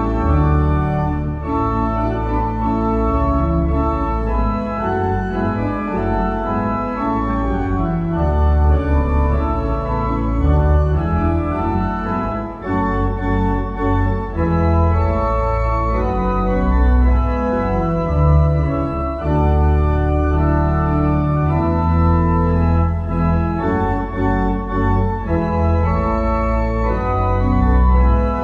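Church organ playing full sustained chords that change every second or so over deep held bass notes.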